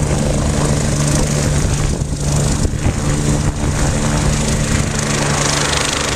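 Medical helicopter running close by, a loud steady rotor wash and engine noise with a fixed low hum.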